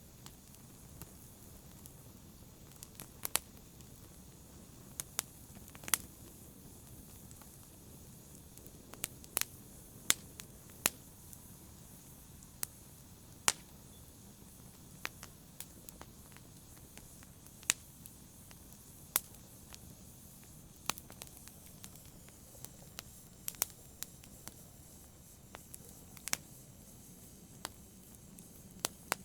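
Wood fire in a fireplace burning with a low steady hiss, broken by sharp, irregular crackles and pops, a few every second or two.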